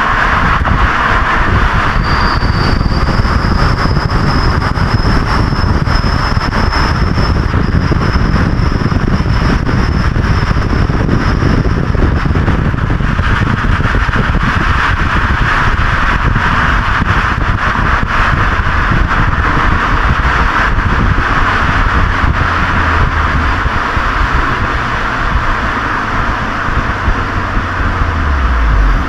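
Honda Legend KB1's 3.5-litre V6 exhaust heard at the muffler while driving, mixed with wind and road noise. A thin, high whistle runs from about two seconds in to about twelve seconds, a peeping that the owner wonders is an exhaust leak. The low exhaust drone grows stronger near the end.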